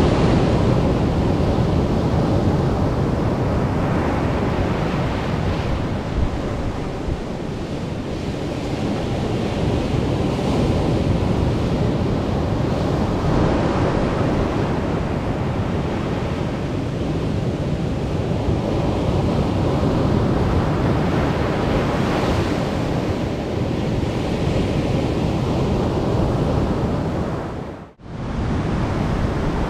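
Sea surf washing onto a small sandy beach, a continuous rush that swells and eases several times, with wind buffeting the microphone. The sound cuts out for an instant near the end.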